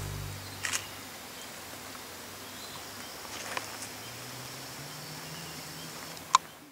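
Quiet outdoor bush ambience with a steady hiss, a few faint clicks and a brief faint high tone in the middle, then one sharp click near the end.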